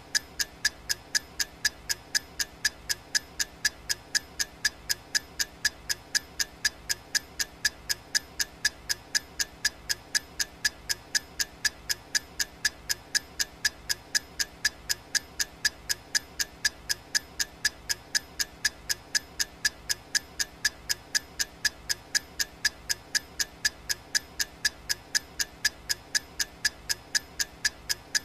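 Clock-ticking sound effect of a countdown timer: sharp, quick, evenly spaced ticks that never pause.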